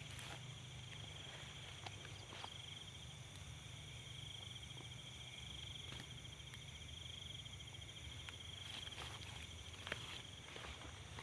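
Insects, crickets or the like, trilling steadily in a continuous high, finely pulsed chorus, with a few scattered small clicks and rustles.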